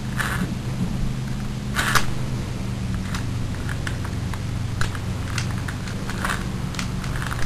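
Small nitro engine of an RC truck running at a steady idle, with irregular clicks and short rattles over the hum. These are the odd noises whose cause the owner is unsure of.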